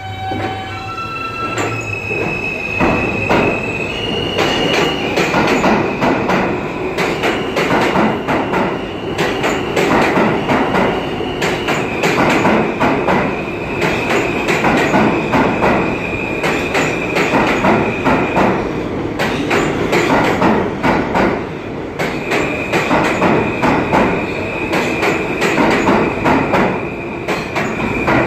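New York City subway train running along the platform: a steady rumble with rapid clatter of wheels over the rails, and a high, steady wheel squeal held most of the time, dropping out briefly partway through.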